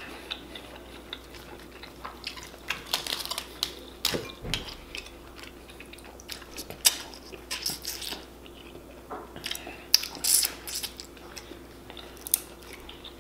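Close-up eating of snow crab legs: shell pieces cracked and snapped by hand, meat pulled from them, and chewing. The sound comes as irregular crackling clicks and short bursts.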